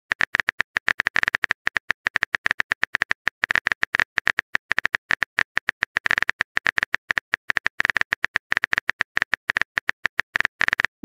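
Phone keyboard typing sound effect: rapid, crisp key-tap clicks, about ten a second in uneven runs with short pauses, as a chat message is typed out.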